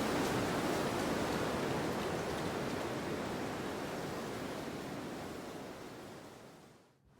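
Steady rushing of wind in a snowstorm ambience, an even noise without distinct gusts or other sounds. It fades away over the last couple of seconds, almost to silence at the very end.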